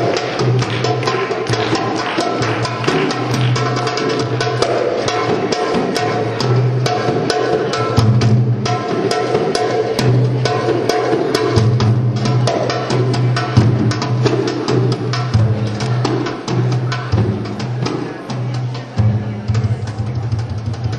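Live belly-dance band playing an improvisation: fast, continuous hand-drum strokes over held low notes from a pitched instrument.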